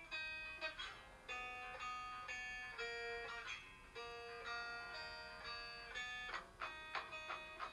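Quiet background music: a plucked-string melody of short notes changing about every half second.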